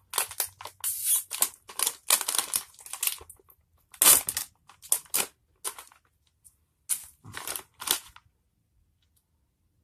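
A plastic snack bag crinkling in a run of short rustles as it is opened by hand and a wrapped bar is pulled out; the rustling stops about eight seconds in.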